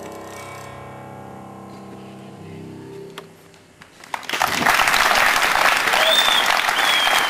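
A final piano chord rings out and fades over about three seconds. After a short pause, an audience breaks into loud applause about four seconds in.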